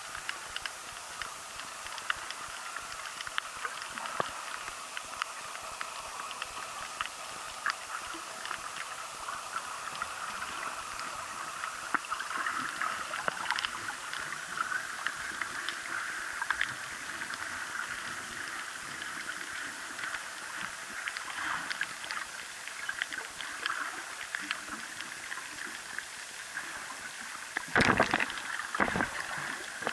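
Underwater ambience picked up by a camera held below the surface over a coral reef: a steady muffled water hiss with many small scattered clicks, and two louder swishes of water near the end.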